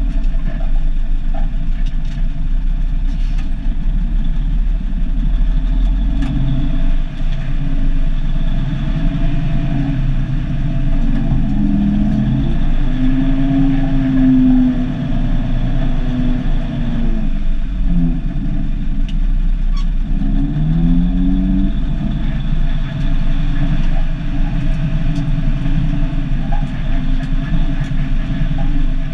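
Turbocharged Cummins NH-180 six-cylinder diesel of an International F-210D dump truck running on the move, heard loud from inside the cab. The engine note rises and falls a few times around the middle.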